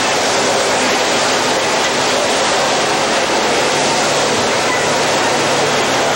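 Steady, loud rushing of water from fire hose streams at a working fire, with a faint low hum of running fire apparatus beneath.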